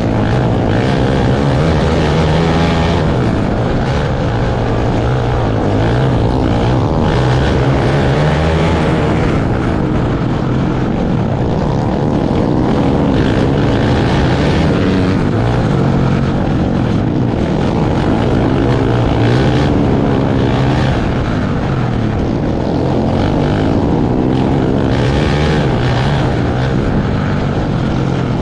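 Outlaw kart engines racing in the Open 500 class, their pitch rising and falling in waves as they rev down the straights and back off into the corners.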